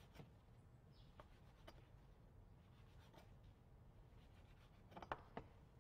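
Very faint scraping and light taps of a kitchen knife cutting the crusts off slices of white sandwich bread on a cutting board, with a few scattered soft ticks and a slightly louder cluster near the end.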